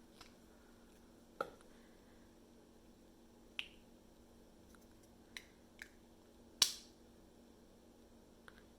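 A handful of light, separate clicks and taps from cosmetic packaging being handled, with the loudest click about two-thirds of the way through.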